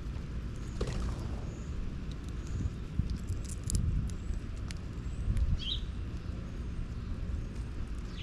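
Outdoor ambience: a steady low rumble with uneven swells, with a short bird chirp about two thirds of the way through and a few faint ticks.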